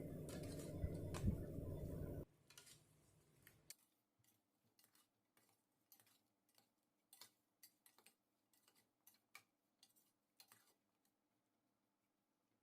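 Near silence: a faint steady background hum with a few light clicks cuts off after about two seconds, leaving only a handful of faint, scattered ticks.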